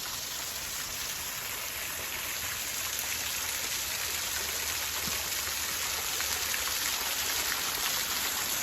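Waterfall rushing: a steady wash of falling water that grows slightly louder.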